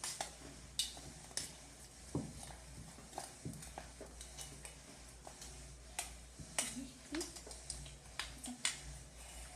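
Scattered sharp clicks and taps of a chocolate drink powder container being opened and handled, with a few louder clicks about a second in and again around six to nine seconds in.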